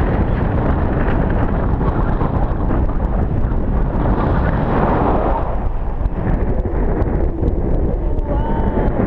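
Heavy wind buffeting a camera microphone from the airflow of a tandem paraglider in flight, a loud, dense, fluttering rush.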